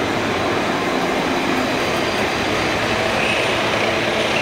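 CNC lathe running a cut with coolant spraying against the inside of its enclosure window. The sound is a steady, even wash of machine and spray noise with a faint hum under it.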